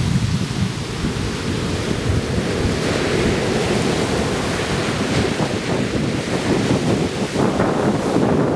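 Ocean surf breaking and washing up a sandy beach, with a wash of foam that swells about three seconds in. Wind rumbles on the microphone throughout.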